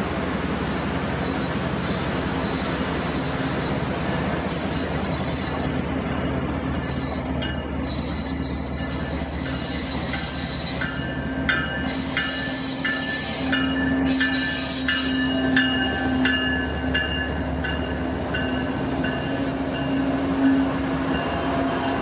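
Freight train led by GE diesel locomotives approaching and passing close by: engines running with a steady low drone over the rumble of wheels on rail. Wheels squeal with high steady tones through the middle as the locomotives go by.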